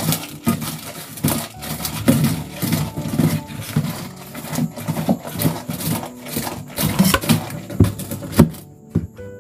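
Quick, irregular knocking and clattering of household things being handled, moved and set down.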